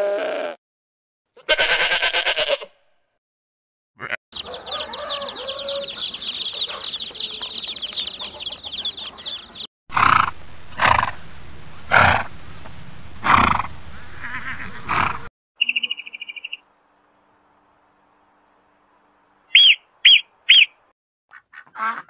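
A run of different animal calls edited one after another: a pitched call, a long stretch of fast high chirping, then about five loud calls roughly a second apart, and three short high calls near the end.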